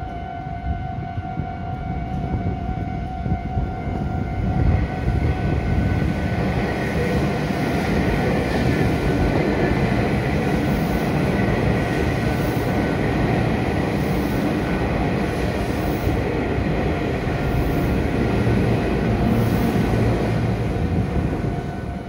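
Japanese level crossing warning bell ringing with a steady electronic tone while a Meitetsu electric commuter train passes close by; the rumble and rattle of its wheels on the rails builds about four seconds in and stays loud for the rest.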